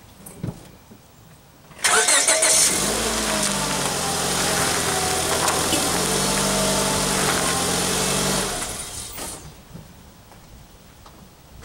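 A Honda Civic's four-cylinder engine starts with a sudden burst, runs for about seven seconds, then dies away as it is switched off.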